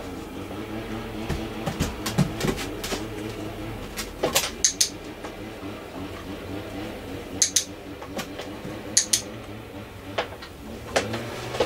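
Sharp clicks, mostly in close pairs a fraction of a second apart, four or five times, over a low steady hum.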